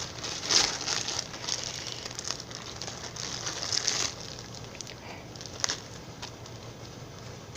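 Jelly cube slime squished and stretched in the hands, with irregular crackling and popping.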